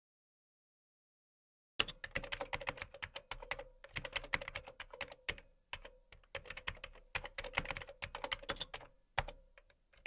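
Typing on a computer keyboard, starting about two seconds in, in quick runs of keystrokes broken by short pauses.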